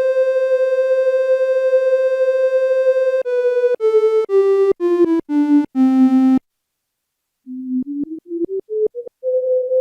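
Roland SH-01 Gaia synthesizer playing a patch being built to imitate human whistling: a held note, then a scale of about eight notes stepping down about an octave. After a short pause, a purer, slightly breathy tone steps back up the scale and holds the top note.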